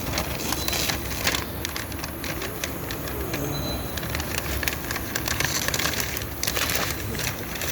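Air spray gun spraying black underbody coating onto a car's sill: a continuous hiss with irregular spattering crackles, louder in a few stretches.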